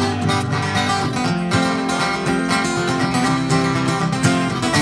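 Acoustic bluegrass jam with no singing: several acoustic guitars strumming and picking a steady rhythm, with a harmonica holding long notes over them.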